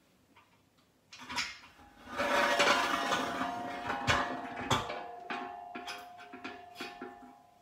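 Galvanised steel telescopic security bollard being pushed down into its ground sleeve: metal sliding and scraping against metal, then a sharp clunk as it seats, with a steady ringing tone that dies away over a few seconds and light metallic clicks and taps.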